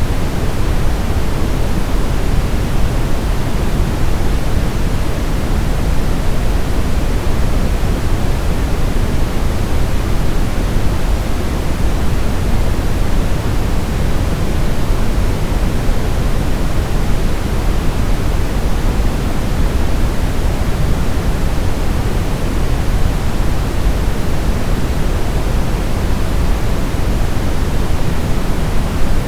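Continuous baby sleep-aid white noise: a steady, unchanging rushing hiss, heavier in the low end than the high.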